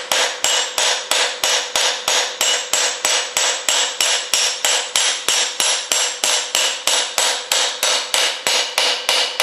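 Rapid, even hammer taps on a steel socket held against the helical crankshaft timing gear of a 1962 Studebaker 289 V8, about four strikes a second, each with a short metallic ring. The taps are driving the gear onto the crankshaft snout until it seats.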